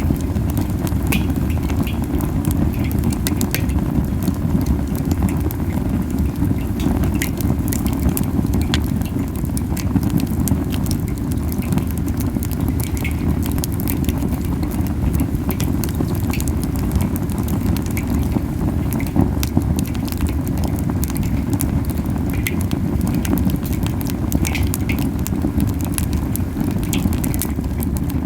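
Camellia wood fire crackling and popping over a steady low rumble of flame. The rumble is the puffing ('bofu-bofu') of a fire burning too hot, as the owner explains it.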